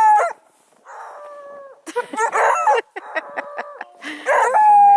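Redbone Coonhound puppies barking and baying in short and drawn-out calls. Several voices overlap about three seconds in, and a long held bay comes near the end.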